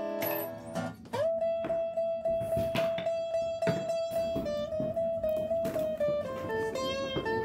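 Background guitar music: a long held note that slides up into pitch about a second in, followed by a run of falling notes.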